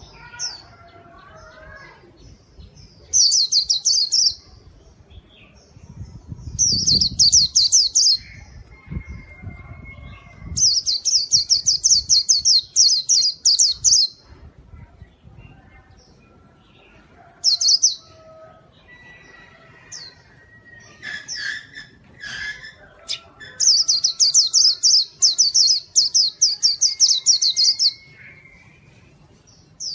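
White-eye (pleci) singing in bursts of fast, high trills, five bursts of one to four seconds each, with fainter chirps and whistles between them.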